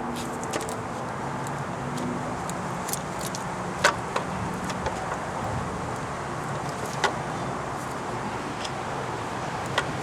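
A replacement alternator being fitted into a car's engine bay: scattered sharp clicks and knocks of parts and tools, the loudest about four seconds in and another about seven seconds in, over a steady background hum.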